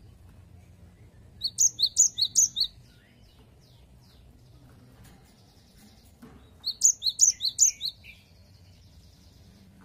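Cinereous tit (gelatik batu) singing two quick phrases of repeated high, sharp notes, each about a second long, the second phrase about five seconds after the first.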